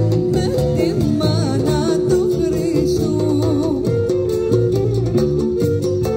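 Live band music from a Cypriot group, with plucked guitar-like strings over a steady rhythmic accompaniment.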